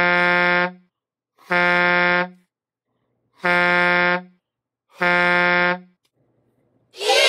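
Air horn sound effect, four identical deep blasts each about two-thirds of a second long, dubbed over nose-blowing into a tissue. Near the end a louder, noisy sound starts, sliding downward in pitch.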